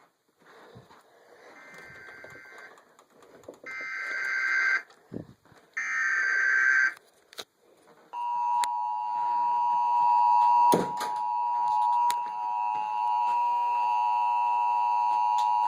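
Emergency alert broadcast header: three short raspy data bursts about a second apart, then a long steady attention tone of two close pitches that holds for about eight seconds. The tones are played through a speaker in a small room, with a single knock about eleven seconds in. They signal that a warning announcement follows.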